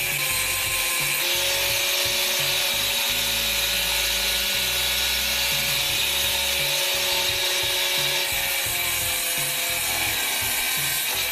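Hand-held angle grinder running with its disc ground against steel: a steady motor whine over a continuous harsh, hissing scrape.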